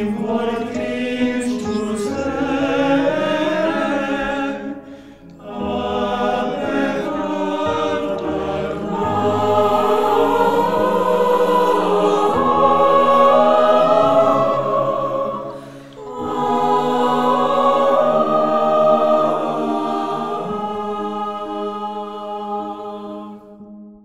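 Mixed choir singing a traditional Armenian lullaby in slow, sustained phrases. Men's voices lead at first and the full choir is singing by the middle. The phrases break off briefly about five and sixteen seconds in, and the singing fades near the end.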